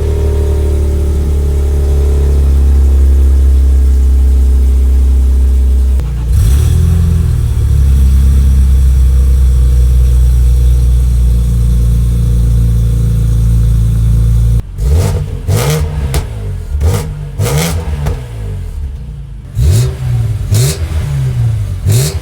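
Decatted BMW M straight-six with an X-pipe exhaust running steadily, with one short rev blip about six seconds in. In the last third it is revved again and again in quick blips, each rising and falling.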